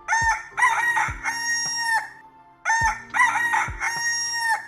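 Rooster crowing twice, each crow a series of short rising notes ending in one long held note.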